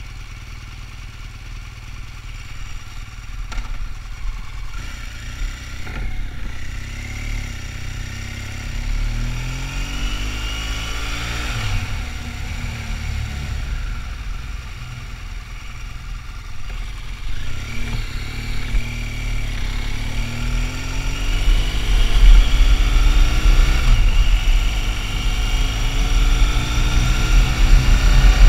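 BMW motorcycle's engine running under way, revving up through the gears with its pitch rising several times, and growing louder toward the end as it pulls harder.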